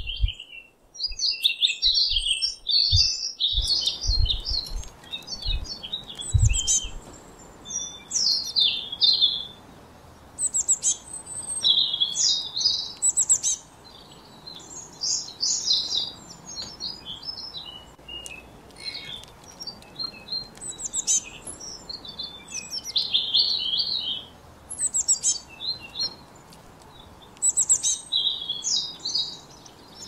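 Songbirds singing: quick, high chirping phrases following one another every second or so. A faint steady hiss comes in after a few seconds.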